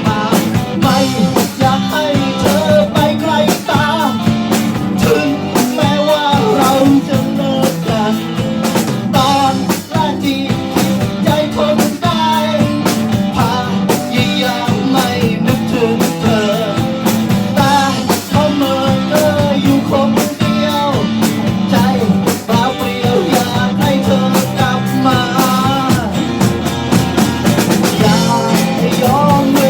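Rock song played by a band: drum kit and guitars throughout, with a bending melody line over the top.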